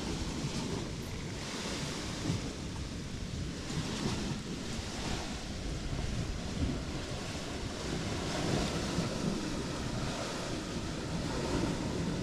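Wind buffeting the microphone as a steady, gusting rumble, over a wash of water.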